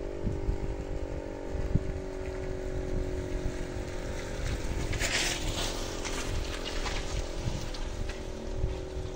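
KIRKE 400 siren sounding a steady, unchanging tone. A brief hiss comes about halfway through, and low gusty rumble from wind on the microphone runs underneath.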